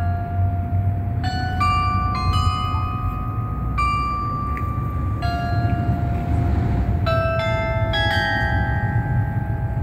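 The Kitchener Glockenspiel's tower bells playing a slow melody, one struck note after another, each ringing on into the next, over a steady low rumble.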